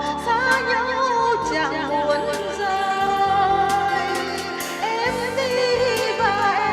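A solo singer's voice holding a melody with vibrato over instrumental backing music with bass and a regular percussion beat.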